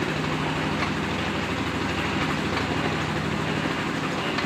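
Engine-driven clay extruder (molen) for hollow bricks running steadily: a loud, even engine drone with a fast firing pulse, very noisy.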